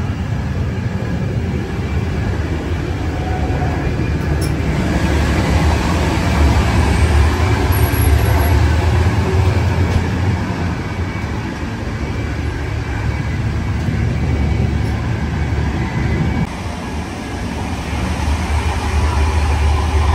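PKP Intercity express train running at speed: a steady low rumble of wheels on track with a broad hiss over it, dipping briefly in level about three-quarters of the way through.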